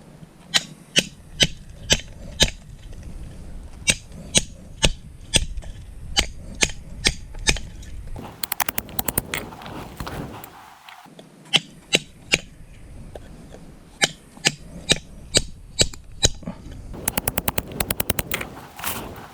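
Hammer striking a chisel against concrete wall cap units, shaping the corners: a run of sharp strikes about two a second, broken twice by quick rattling runs of lighter taps.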